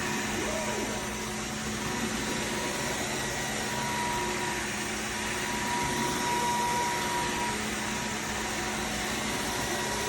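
Dreame H14 wet-dry vacuum mop running a cycle on its charging base: a continuous, even whir with a faint steady whine.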